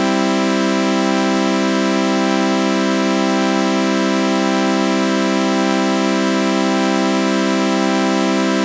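Synthesized sawtooth-wave chord with a flanger effect, held as one steady, unchanging drone with a faint slow sweeping shimmer, sounding like a buzzy electronic organ chord.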